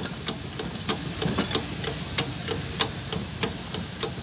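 Hand-operated hydraulic cab-tilt pump on a HOWO truck being worked with a lever bar: a quick, uneven run of clicks, about four or five a second, from the pump handle. The cab stays down while it is pumped, the sign of a leaking packing seal in the cab-tilt cylinder.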